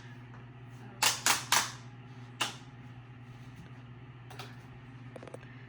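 Sharp clicks from the skeleton animatronic's controls being pressed, three in quick succession about a second in and another a little later, over a low steady hum.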